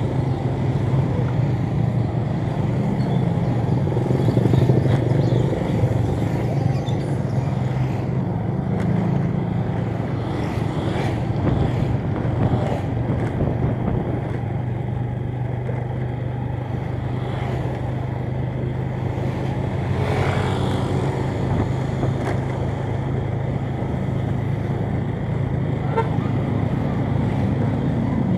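Motorcycle engine running at a steady cruise, with road noise and other motorbikes and cars in the traffic around it.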